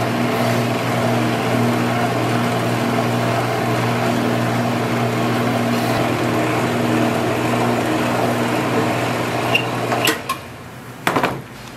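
Electric noodle-cutting machine running with a steady motor hum as it cuts sheets of kalguksu dough into noodles. The hum cuts off about ten seconds in, followed by a few short knocks.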